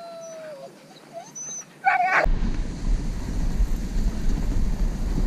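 Harnessed Siberian huskies whining and yipping while they wait at the start: a long whine that falls in pitch, then a short yip. About two seconds in, this cuts off sharply to steady wind noise on the camera microphone as the dog sled runs across open snow.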